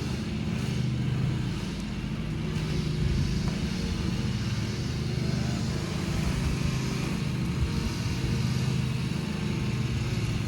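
A 2014 Chevy Silverado's engine idling steadily, a low even hum.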